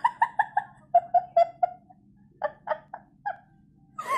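A person laughing in a quick run of short, high-pitched bursts, about five a second. After a brief pause, a second, shorter run of laughter follows.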